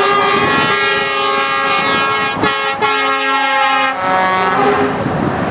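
Truck air horns sounding a loud multi-note chord, held for about four seconds with a brief break and shift in pitch partway through, then stopping, leaving the rush of passing lorries.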